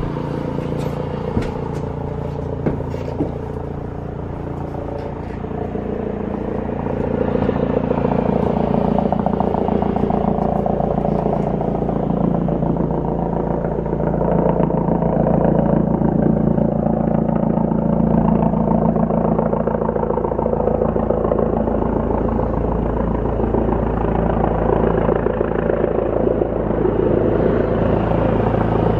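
Helicopter rotor and turbine running as it comes in to land. The sound grows louder from about six seconds in and then holds steady, with a fast, even rotor beat.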